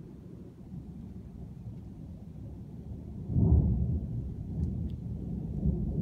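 Thunder rumbling low, then swelling suddenly into a louder peal about three seconds in that rolls on.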